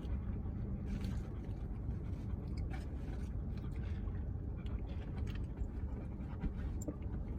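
Steady low rumble of a car's cabin with the engine running, and a few faint clicks and chewing sounds from someone eating.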